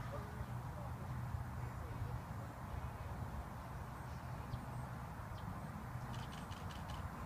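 Steady low outdoor rumble with a few faint bird chirps, and a quick run of about six clicks about six seconds in.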